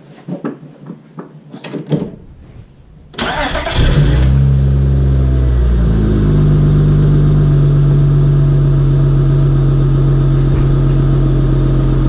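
A few light knocks, then the Acura CL 3.2's V6 is cranked by the starter about three seconds in, catches, revs briefly and settles into a steady idle. The idle runs evenly with no shake, although the engine logs intermittent misfires on cylinders 1 and 4.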